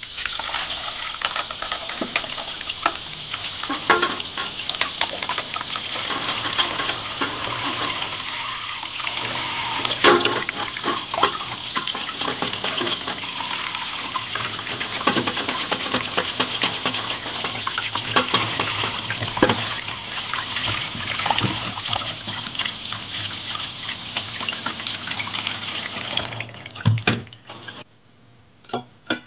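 Tap water running steadily over crabs being scrubbed by hand in a sink, with occasional knocks. The water cuts off near the end, followed by a few light clatters.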